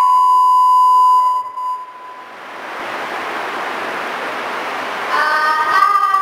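A child's singing voice holds one long high note that fades out about a second and a half in. A steady hiss follows, and the singing starts again near the end.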